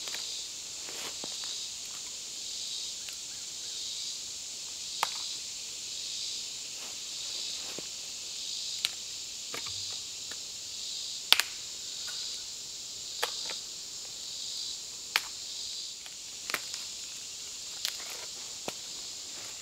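Dry wood snapping in about eight sharp cracks as small pieces are broken off a tree trunk by hand, the loudest a little past the middle. Under it, a steady high-pitched insect chorus pulses just under twice a second.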